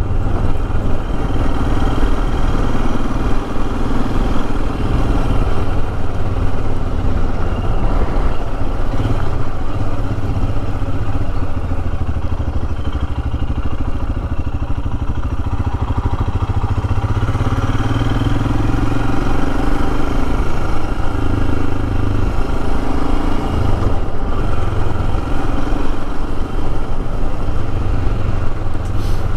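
Royal Enfield Himalayan's single-cylinder engine running at a steady road pace, its note rising and falling slightly as the bike rides along.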